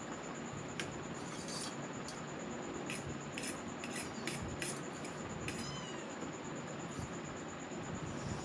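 Close-up mouth sounds of eating noodles: a series of short wet clicks and smacks over the steady noise of a running ceiling fan, with one brief high-pitched squeal a little past the middle.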